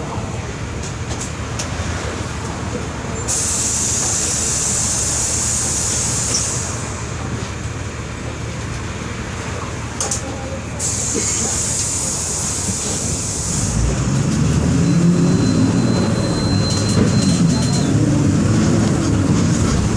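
Volkswagen 17.230 EOD bus under way, its engine and running gear making a steady low rumble. Two stretches of loud hiss of about three seconds each start and stop sharply. The rumble grows louder in the last few seconds.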